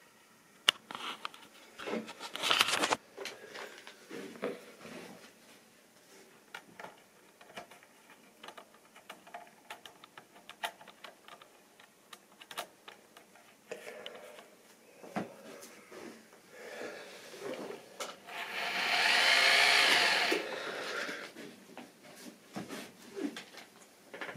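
Small electric motor of a model railway locomotive whirring for about two seconds near the end, among light clicks and knocks of the model locomotives being handled and set on the track.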